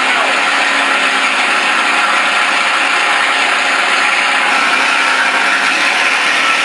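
Simulated Daimler-Benz aircraft engine sound from a Mr. RCSound V4 sound module, played loud through two 3-inch Aero Sounds speakers in a model A-1 Skyraider, running steadily.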